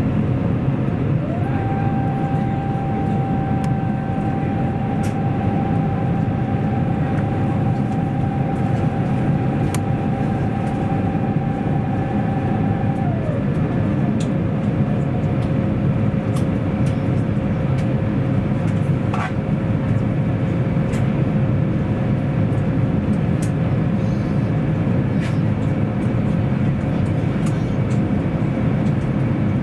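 Airbus A350 cabin noise in flight on approach: the steady hum and rush of its Rolls-Royce Trent XWB engines and the airflow, heard through the cabin. A higher tone rises about a second in, holds, and drops back around thirteen seconds.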